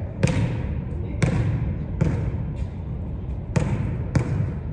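Basketball being dribbled on a hardwood gym floor: about five loud, unevenly spaced bounces, each ringing on in the echo of the large hall.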